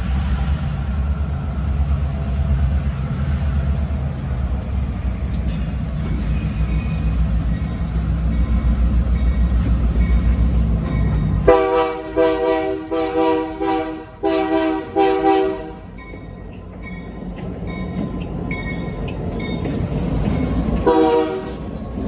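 Diesel freight locomotive approaching with a steady low engine rumble, then its air horn, several notes at once, sounded in a rapid string of short blasts about halfway through, the loudest sound here. One more short horn blast comes near the end as the locomotive passes.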